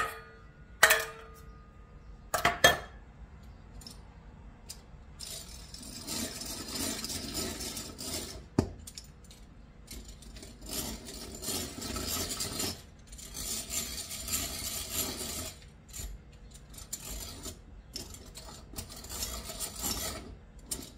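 Hand-cranked rotary egg beater working in a ceramic mixing bowl: a few sharp metal clinks against the bowl in the first three seconds, then from about five seconds in a continuous rasping churn as the beaters are turned through the flour mixture, swelling and easing in uneven spells.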